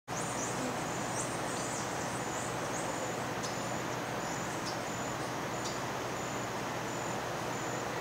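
Forest ambience: a high insect buzz pulsing regularly, a little over once a second, over a steady hiss, with a few brief high chirps in the first six seconds.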